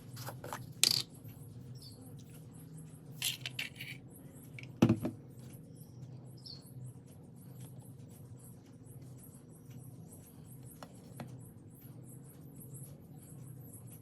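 Pancake batter sizzling in ghee in a hot pan, a fine continuous crackle over a low steady hum, with a few sharp knocks about a second in, around three and a half seconds in and the loudest about five seconds in.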